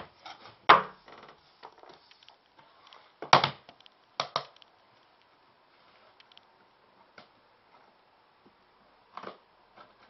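Sweeping up with a hand brush and plastic dustpan on a wooden floor: brushing scrapes and a few sharp knocks and clatters of the brush and pan against the boards. The loudest knock comes about a second in, two more around three and four seconds in, and a smaller one near the end.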